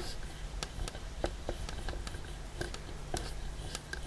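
Light clicks and taps of hands handling the small plastic parts of a bathroom exhaust fan's motor and shaft, over a steady low hum.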